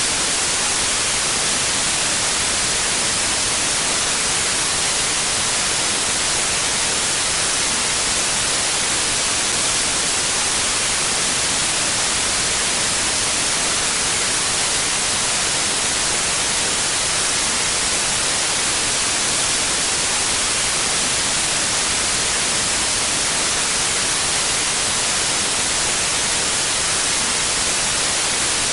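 Static white noise: a steady, even hiss, brightest in the high range, that does not change.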